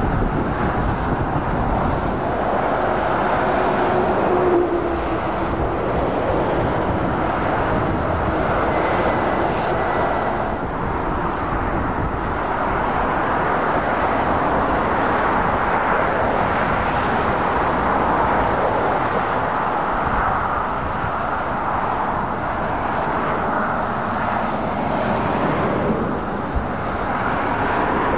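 Steady traffic noise from lorries and cars passing on a dual carriageway: a continuous wash of diesel engine and tyre sound with no let-up. A faint engine drone sinks slightly in pitch in the first few seconds.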